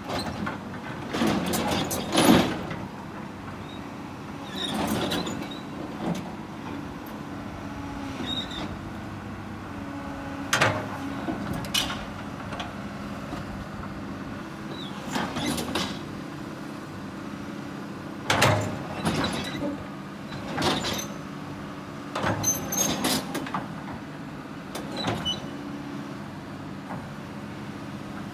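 Excavator's diesel engine running steadily under load as the machine hauls itself onto a truck's trailer, with loud steel clanks and scrapes every few seconds, the loudest about two seconds in.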